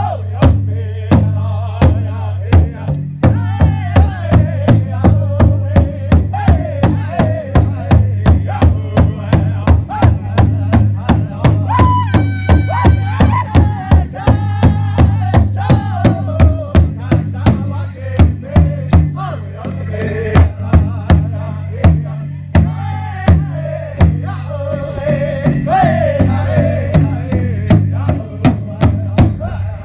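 Powwow drum group: a large laced rawhide powwow drum struck in a steady, even beat, about two to three strokes a second, with singers chanting in high voices over it.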